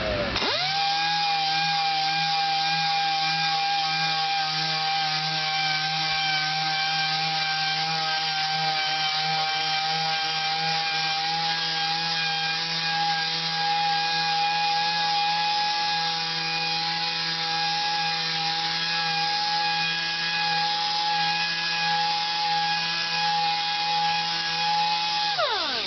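A random orbital (DA) sander spins up just after the start, runs at a steady pitched whine while sanding a Corian solid-surface countertop with fine 600-grit paper, and winds down near the end.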